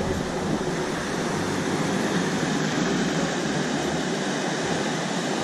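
Surf breaking and washing up a sandy beach: a steady rushing hiss of small waves.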